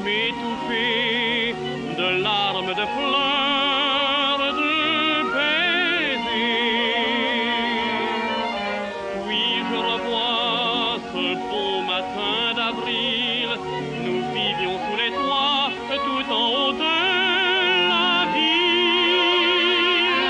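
Orchestral background music with a lyrical melody played with strong vibrato; no words are sung.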